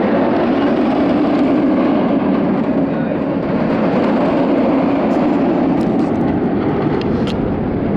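Strong wind buffeting the microphone: a loud, steady rush of wind noise with a ragged low flutter.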